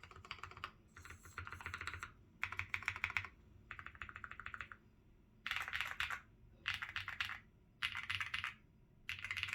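Custom mechanical keyboard with hand-lubed Holy Panda tactile switches on a polycarbonate plate, typed on in short bursts of quick, clacky keystrokes with brief pauses between them.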